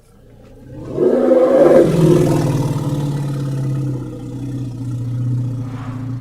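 Triceratops roar sound effect: one long, low roar that swells up about a second in, holds steady for several seconds, and cuts off at the end.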